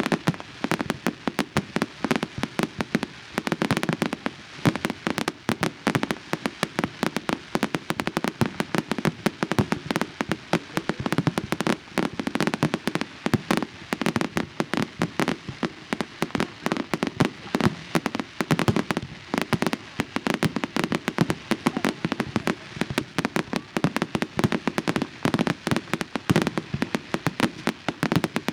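Fireworks display: a dense, unbroken barrage of sharp bangs and crackles, many a second, with no let-up.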